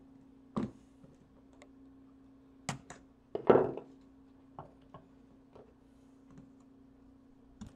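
The glued plastic cover of an LED bulb clicking and snapping as it is gripped and broken away with large pliers: a handful of short sharp clicks and taps, the loudest about three and a half seconds in.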